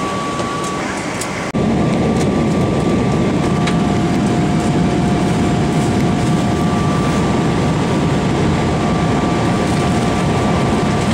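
Steady airliner cabin noise: the constant rush of jet engines and airflow through the fuselage, with a faint steady whine above it. It jumps louder at a cut about a second and a half in.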